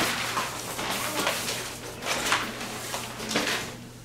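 Nylon shell of an inflatable sleeping pad rustling and sliding over a tile floor as it is handled and flipped over, in a few swishes about a second apart.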